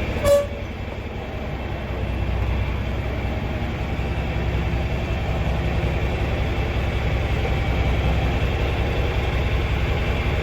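Old farm tractor's engine running steadily at low speed while it is backed into place, with a brief clunk about a third of a second in.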